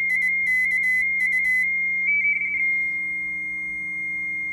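45-baud Baudot RTTY audio: a frequency-shift-keyed signal warbling quickly between two close tones for about a second and a half, a short burst of the same warble about two seconds in, then one steady tone held on the idle mark frequency.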